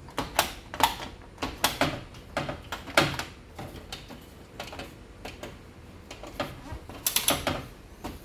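The switches and program-knob mechanism of an LG washing machine's control panel being worked by hand to test them after the repaired control board is fitted: a run of uneven sharp clicks, about two a second, bunching up about seven seconds in.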